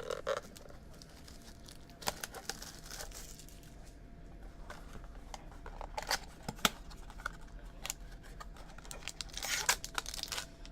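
Crinkling and tearing of packaging and rustling of trading cards as they are handled, in scattered short bursts with a longer rustle near the end.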